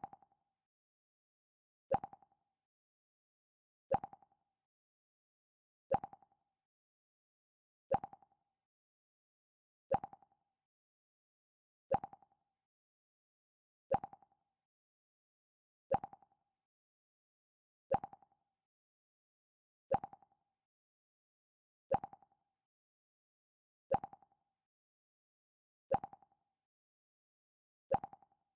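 The Mac OS X 'Pluck' alert sound played on a loop: a short plucked note, repeated every two seconds.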